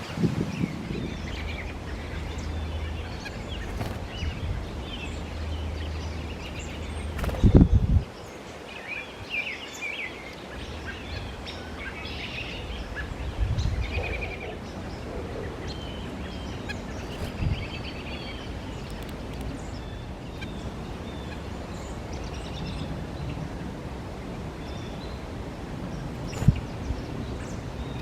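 White-breasted nuthatch giving short, scattered calls over steady outdoor background noise. A low rumble runs for the first several seconds, and two brief thumps come about seven seconds in and near the end.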